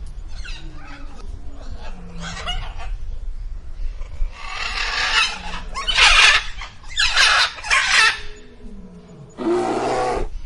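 Chickens clucking and squawking: a string of separate calls, loudest through the middle, with a last loud squawk near the end that starts and cuts off abruptly.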